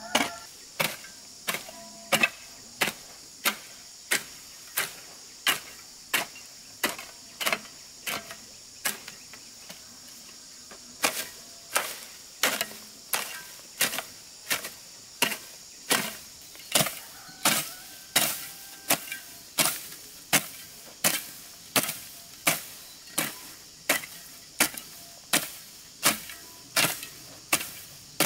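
Hoe chopping into soil and weeds in a steady rhythm, a stroke about every two-thirds of a second, with a short pause about ten seconds in. A steady high insect drone runs underneath.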